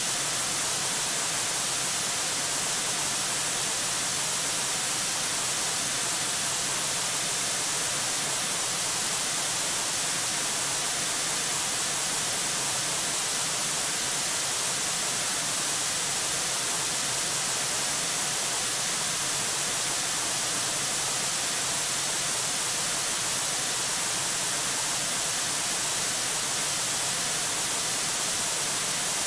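Steady, even static hiss from the nest camera's audio feed, unchanging throughout.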